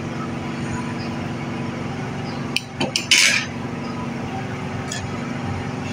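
A steel spoon clinks and scrapes against a small ceramic bowl as the bowl is set down on a table, a few clicks and a short clatter about three seconds in, with a faint click near the end. A steady low hum runs underneath.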